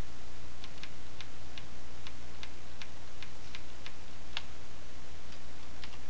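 Computer keyboard keys clicking one at a time at an uneven, unhurried pace as a short command is typed and then deleted. A steady low hum runs underneath.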